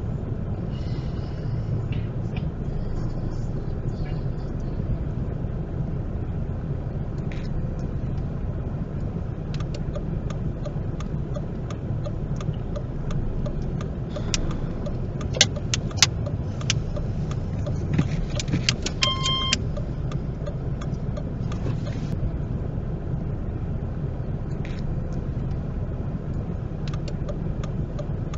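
Car interior engine and road rumble while driving slowly, with scattered clicks in the middle and one short electronic beep about two-thirds of the way through.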